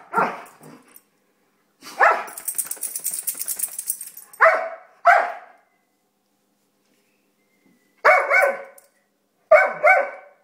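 Two dogs play-wrestling, barking in short pairs of barks, with a longer rough, rapid growl-like stretch about two seconds in.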